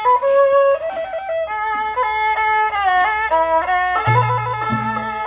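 Instrumental outro music: a melody of held and sliding notes, with a low bass line coming in about four seconds in.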